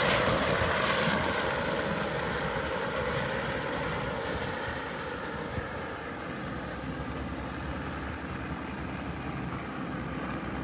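AS350 Squirrel single-engine helicopter flying away after lift-off, its rotor and turbine noise fading over the first several seconds, then lingering as a steady distant drone.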